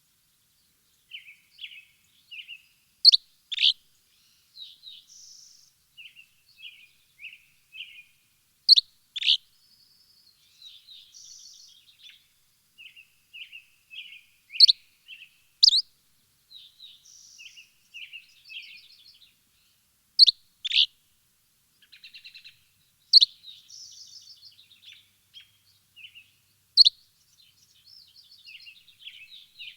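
Birds chirping, with many soft short chirps and trills. A louder, sharp call, often two notes close together, recurs every few seconds.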